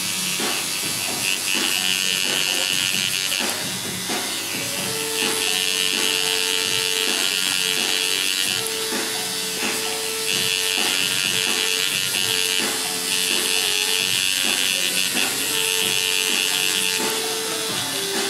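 Coil tattoo machine buzzing as its needles work ink into skin. It runs in stretches of two to three seconds, stopping briefly between them, about six times.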